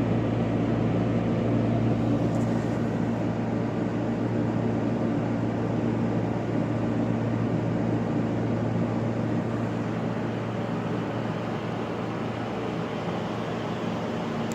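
LG 12,000 BTU air conditioner running, its fan blowing steadily over a low, even hum.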